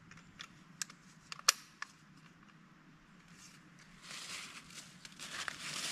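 A few sharp metallic clicks as a Savage Axis bolt-action rifle is handled, the loudest about a second and a half in. From about four seconds in, dry fallen leaves rustle and crunch underfoot.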